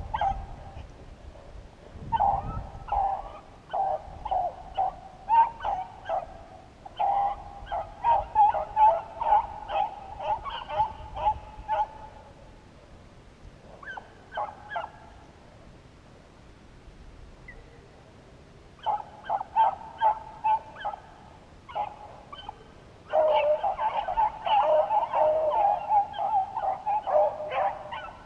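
Beagles baying in runs of rapid, high bawls, the voice of rabbit hounds on a track. There is a lull in the middle, and the baying is loudest near the end.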